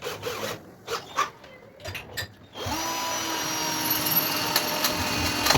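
A few handling clicks and knocks, then a handheld electric power tool spins up about two and a half seconds in and runs at a steady pitch for about three seconds before stopping.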